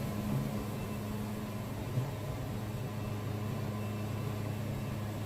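Wood-Mizer band sawmill's engine running at a steady drone, with one small knock about two seconds in.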